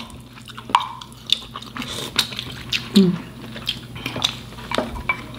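Wet eating and handling sounds from a seafood boil eaten by hand: scattered small clicks, smacks and squelches of sauce-soaked shellfish and a wooden spoon in a glass bowl of sauce. A brief voiced hum, falling in pitch, about three seconds in.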